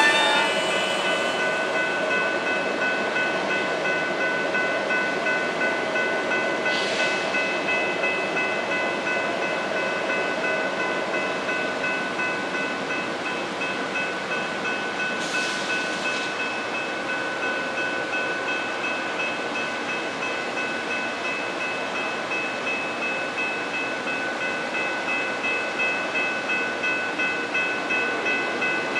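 Railroad grade-crossing warning bells ringing steadily in a regular pulse over the low rumble of a standing passenger train. There are two short hisses of air partway through.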